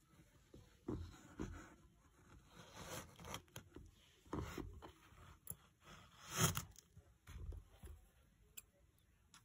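Faint, irregular scraping and rustling of a plastic toy horse figure being moved by hand across a carpet close to the microphone. The loudest rub comes about six and a half seconds in.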